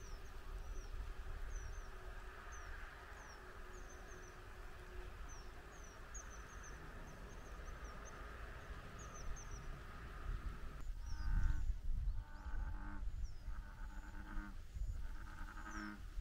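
Outdoor ambience by a pond: small birds chirping high and often, over a steady hiss and low wind rumble. About eleven seconds in, a repeating animal call starts, one call roughly every second.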